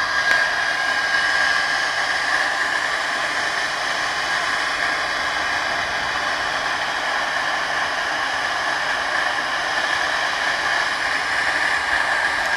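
Electric air blower forcing air into a homemade charcoal furnace: a steady rush of air with a constant high whine.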